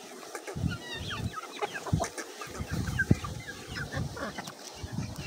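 A flock of chickens, mixed with guinea fowl and peahens, clucking and chirping busily at close range while they peck at feed, many short calls overlapping, with irregular low thuds underneath.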